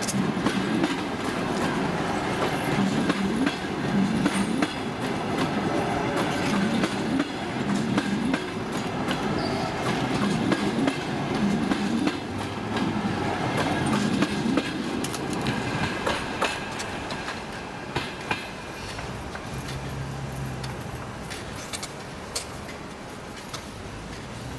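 Passenger coaches of a departing train rolling past at low speed, their wheels knocking over the rail joints in a rhythmic clickety-clack about once a second. The sound fades as the last coach moves away, and a low steady hum comes in near the end.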